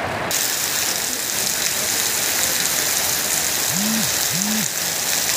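Heavy rain mixed with hail falling on a paved yard and stacked jute sacks: a dense, steady hiss that gets suddenly louder just after the start. Two faint short rising-and-falling tones sound about a second before the end.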